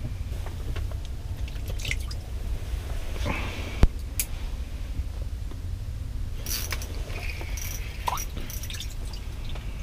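Small rustles and clicks of handling inside a cramped shelter over a steady low rumble, with one sharp click about four seconds in.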